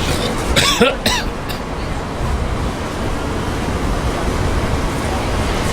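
Outdoor crowd chatter under a steady rushing noise, with a brief sliding cry about a second in.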